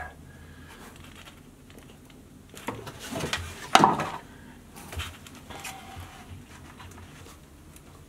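A few scattered knocks and scrapes of sump pump parts being handled, the loudest a little under four seconds in.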